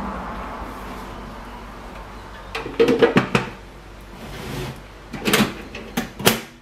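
Sharp metallic clicks and knocks of a small steel hand safe being handled, a cluster of them about three seconds in and a few more near the end. A steady rushing background noise fades away over the first couple of seconds.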